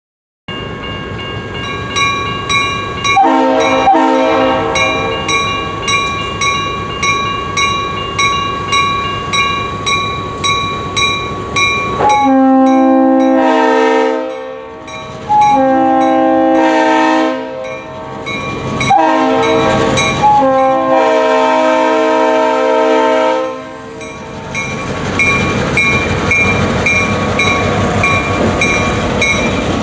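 Locomotive bell ringing steadily on GP38 7706, with a brief blast of its RS3L air horn about 3 s in. From about 12 s the horn sounds a chord in the long, long, short, long grade-crossing pattern. After the last blast the train's running rumble rises while the bell keeps ringing.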